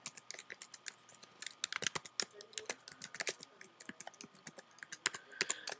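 Typing on a computer keyboard: quick, irregular key clicks in short runs with brief pauses between.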